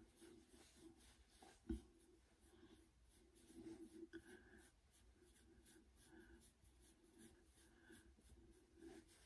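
Near silence, with faint scratchy rustling of fingertips working oil through short, coiled hair, a little louder about three and a half to four seconds in. A single small knock comes just under two seconds in.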